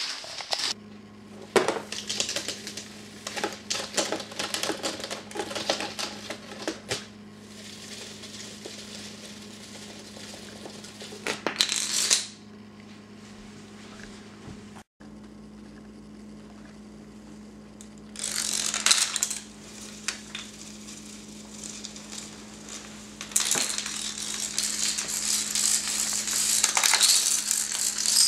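Toppling dominoes: dense runs of rapid clicking and clattering as chains fall, in several bursts separated by quieter stretches, under a steady low electrical hum.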